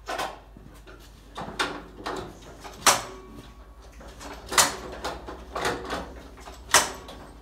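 An old Farmall tractor's engine being turned over by hand crank: a sharp metallic clank with each heave of the crank, about six in all and spaced a second or so apart. The engine does not catch.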